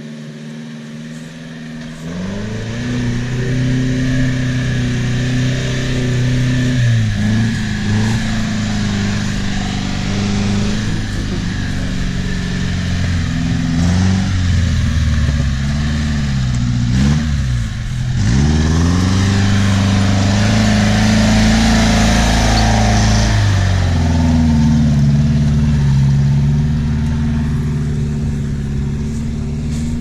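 UAZ Hunter off-roader's engine revving up and down repeatedly as it crawls through a muddy, waterlogged forest rut, the pitch dropping deeply about 18 seconds in and then held high. From about 18 to 24 seconds a louder rush of water and mud comes through as the vehicle draws close.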